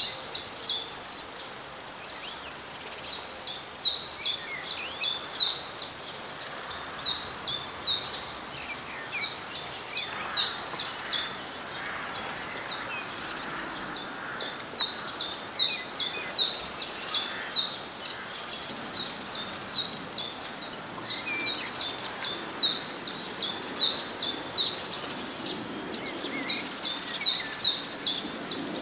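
A small songbird calling, repeating short, high, sharp notes about four a second in runs of several notes, with brief pauses between runs, over a steady background hiss.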